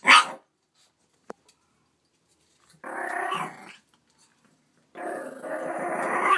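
A puppy gives one sharp bark, then growls in two bouts, the second one longer. It is a fearful growl at her own reflection in a mirror.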